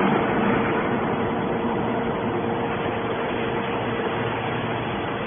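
Hydraulic scrap-metal baler running: a steady mechanical hum with a constant mid-pitched whine.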